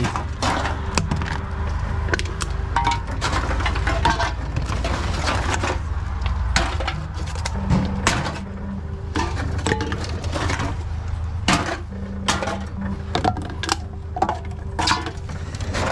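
Aluminium cans clattering and knocking as they are fed one after another into a TOMRA reverse vending machine's can chute, over the machine's steady low hum. A short motor whirr comes on and off a few times as the machine takes cans in.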